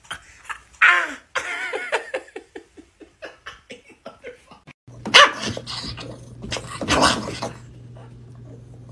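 A man's voice laughing and crying out for the first few seconds. After a cut, a small dog barks up at a cat in two bursts, about five and seven seconds in, over a steady low hum.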